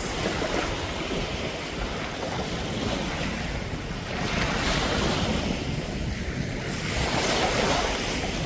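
Sea surf washing in with wind buffeting the microphone, swelling louder twice, around four and seven seconds in.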